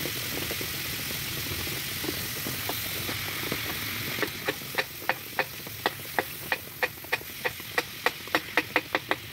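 Meat sizzling in a frying pan on a portable gas stove. About four seconds in, a knife starts chopping the meat in the pan, its blade hitting the pan with sharp clicks about four times a second, coming faster near the end.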